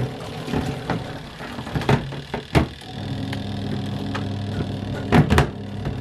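Ramtons 10 kg twin-tub washing machine's wash motor running with a steady hum that starts about three seconds in, driving the wash cycle. Before it come scattered clicks and knocks of the plastic lid, and two sharp knocks come near the end.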